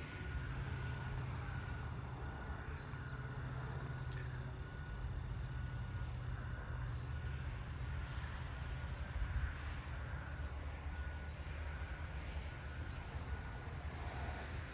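Rural outdoor ambience: a steady low rumble under an even hiss, with faint insects chirping in short repeated pulses.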